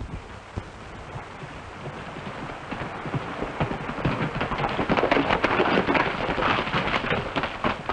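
Horses splashing through a shallow rocky creek: water thrashing and hooves striking stones, growing louder as they come closer and loudest from about halfway through.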